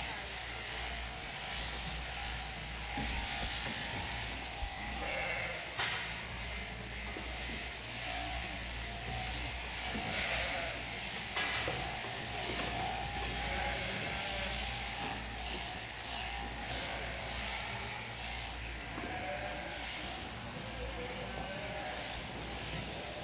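Overhead-drive electric sheep-shearing handpieces running steadily as they clip the fleece off sheep, a constant high buzzing hiss over a low machine hum.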